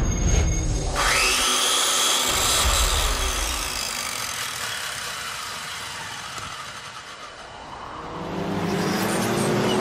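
Cinematic sound-design effects: a deep bass hit and a loud hissing whoosh that surges about a second in, then fades slowly over several seconds. Near the end an engine-like note builds up again, rising in pitch.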